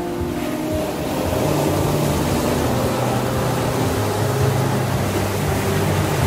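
Steady wash of ocean surf, with sustained low musical tones underneath that shift pitch every second or two, like a soft instrumental pad.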